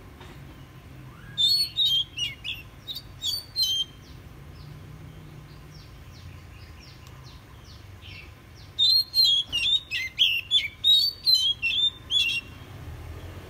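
Oriental magpie-robin singing: two bouts of loud, varied whistled phrases with quick up-and-down glides, starting about a second and a half in and again about nine seconds in, each lasting three to four seconds, with faint soft chips between them.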